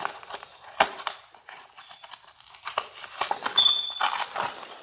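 Cardboard and plastic blister packaging being torn and crinkled by hand, in irregular rustles and snaps that grow busier in the second half, with a brief high squeak of plastic about three-quarters of the way through.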